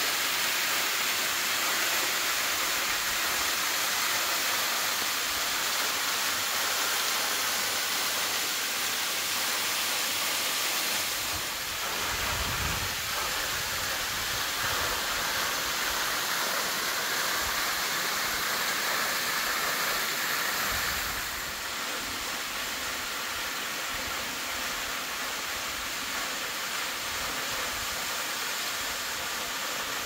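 Waterfall rushing and splashing into a rock plunge pool, a steady hiss of falling water. Its tone shifts twice, about a third and two-thirds of the way through, with a brief low rumble soon after the first shift.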